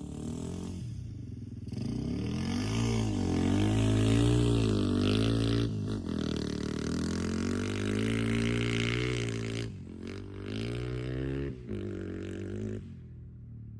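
Off-road motorcycle engine revving up and down while riding, its pitch rising and falling again and again; it drops away near the end.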